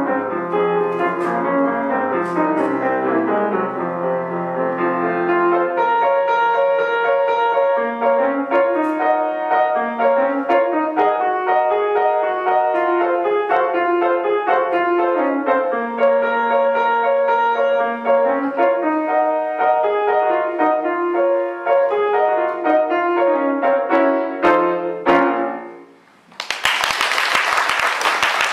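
Yamaha grand piano playing a solo piece, a melody over a moving bass line, ending on a final chord about 25 seconds in. After a moment's pause, the audience applauds.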